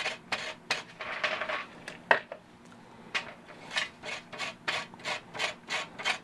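Pocket-knife blade scraping along jute twine in short strokes, about three a second. It is fuzzing the fibres up into tinder that will catch a ferro-rod spark. About two seconds in there is one sharper scrape, then a pause of about a second before the strokes resume.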